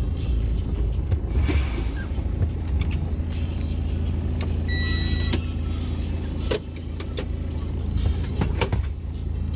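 Logging truck's diesel engine idling steadily, heard from inside the cab, with scattered clicks and a short electronic beep about five seconds in.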